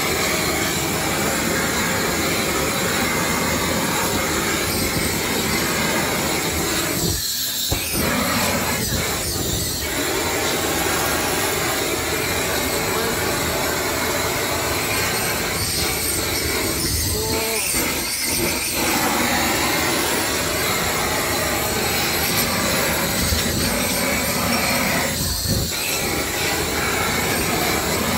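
Handheld gas torch burning with a loud, steady rush of flame as it sears tuna cheeks on a charcoal grill. The rush dips briefly about a quarter of the way in, around the middle and near the end.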